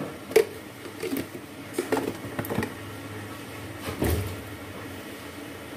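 A few sharp clinks and taps of kitchen utensils, the loudest about half a second in and another about four seconds in, over the low, steady sound of a wide aluminium pot of seasoned water heating on the stove, not yet at a full boil.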